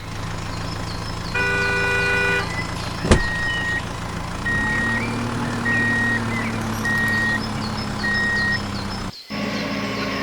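Toy construction truck's electronic sound effects: a steady engine rumble, a horn-like chord for about a second, a sharp click, then a run of five reversing beeps about a second apart. The sound drops out briefly near the end.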